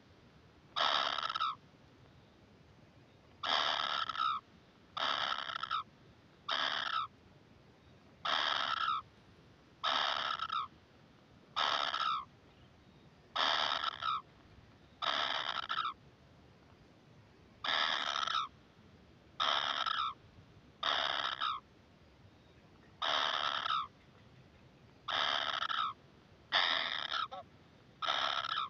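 Kingfisher nestlings giving harsh begging calls, each about half a second long, repeated about every one to two seconds.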